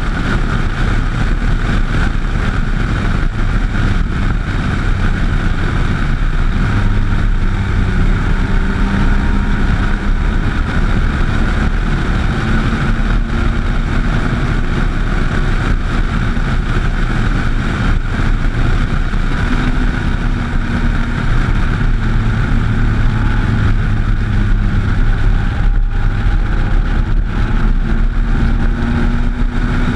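Motorcycle engine running at steady road speed, with wind and road noise rushing over the mount-mounted camera. The engine note rises and falls gently now and then.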